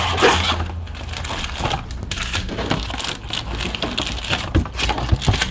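A cardboard Panini Prizm hobby box being opened and its foil-wrapped card packs pulled out by hand: a continuous run of crinkling and rustling with scattered small clicks and taps.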